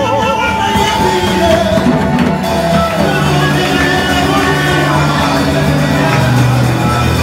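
Loud gospel song played and sung through a PA system: a singer's voice, wavering on a held note near the start, over keyboard and band backing with steady bass notes.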